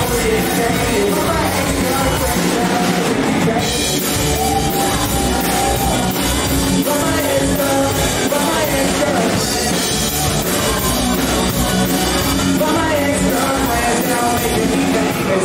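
Live rock band playing: electric guitars and drum kit, with a male vocalist singing into a microphone over them.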